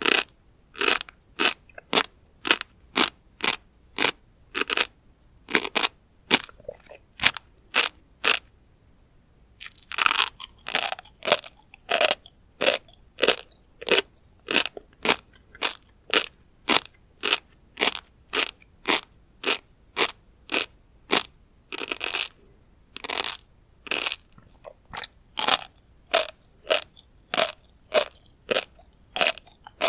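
Close-miked chewing of a mouthful of tobiko (flying fish roe), the small eggs crunching and popping in quick regular chews, about two to three a second, with a short pause about nine seconds in.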